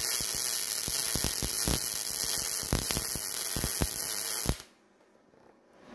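MIG welding arc from a YesWelder DP200 laying a bead on 1/8-inch steel plate: a steady buzzing hiss with frequent crackling pops, cutting off suddenly about four and a half seconds in.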